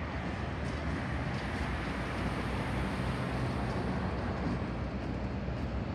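Diesel freight locomotives approaching slowly, a steady low engine rumble mixed with road traffic.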